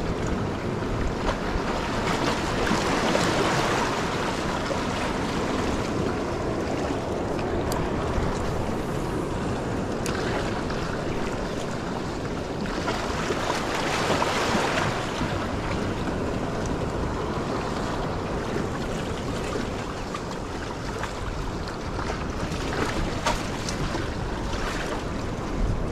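Sea waves washing against the rocks of a jetty, with wind on the microphone; the wash swells about three seconds in and again around thirteen to fifteen seconds.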